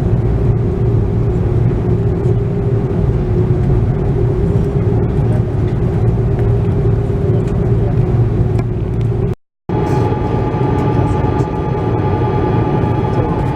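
Steady cabin noise inside an Airbus A330-300 on the ground before takeoff: a loud rumble with a steady engine hum. About two-thirds through, the sound cuts out for an instant and resumes with higher, steady whining tones over the rumble.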